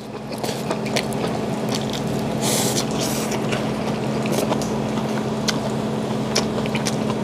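Close-miked chewing of a mouthful of seasoned greens and grilled pork: scattered wet smacks and clicks from the mouth, over a steady low hum.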